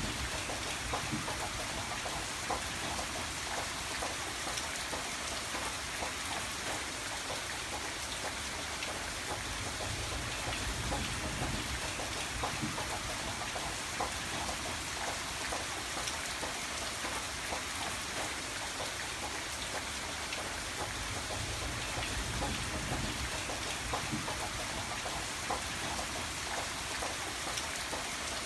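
Steady rain falling, with many small drops pattering on a surface and a low rumble that swells and fades slowly.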